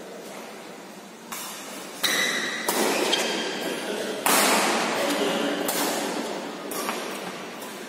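Badminton rackets striking a shuttlecock during a rally, about six sharp hits a second or so apart, each ringing out in the reverberant sports hall.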